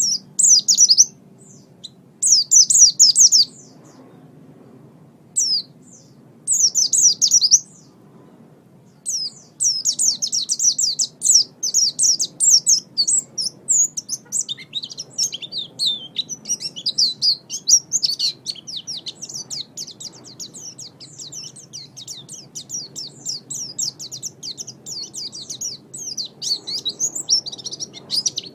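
White-eye (pleci) singing: high, rapid twittering phrases, a few short bursts in the first seconds, then an unbroken run of fast chirps from about nine seconds in.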